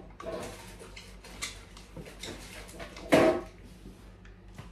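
Hands handling a gaming office chair's seat and packaging: rustling and scraping, with one short, loud scrape or rub about three seconds in.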